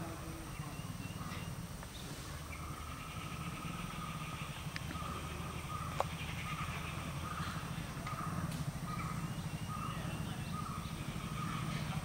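Birds calling with trilled, repeated notes over a steady low rumble, with a single sharp click about halfway through.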